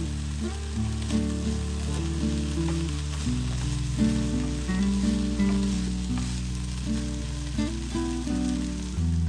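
Food sizzling in a hot frying pan, a steady hiss that stops near the end, under background music.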